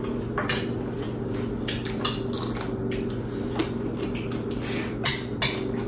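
Spoon clinking and scraping against a bowl: a run of irregular light taps, with a sharper one about five seconds in.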